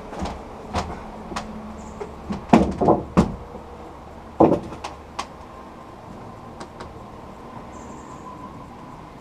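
Knocks and clatter of a powered air-respirator helmet being handled, with a cluster of loud knocks about two and a half seconds in and another about a second later, then a faint steady whine.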